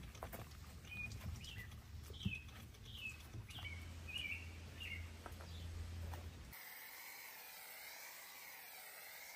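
A small bird chirping, short falling notes about twice a second, over a low steady hum. About six and a half seconds in, this cuts abruptly to the steady hiss of a foam cannon on a pressure-washer gun spraying soap onto a wheel.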